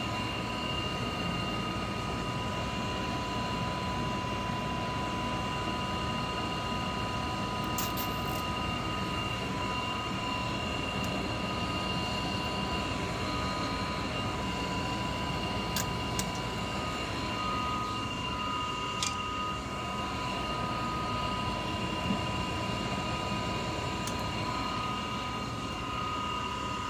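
Single-stage Goodman gas furnace running steadily: a constant rushing hum with a few steady high whining tones and occasional small clicks.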